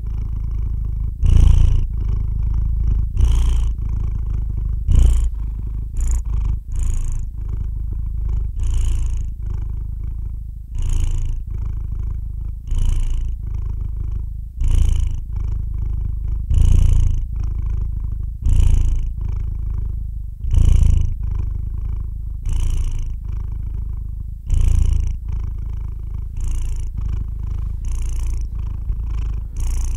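Sleeping calico cat purring, a steady low rumble that swells at an even pace about every two seconds.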